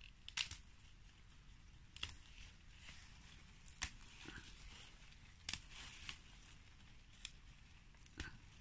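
Young kai-lan (Chinese kale) shoots being snapped off by hand: several short, sharp snaps a second or two apart, the crisp break of fresh, tender stems.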